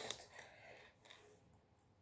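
Near silence with faint rustling of cardboard jigsaw pieces being handled, and a light click about a second in.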